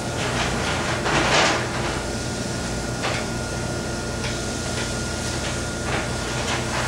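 Short clatters and knocks of kitchen utensils over a steady machine hum; the loudest clatter comes about a second in.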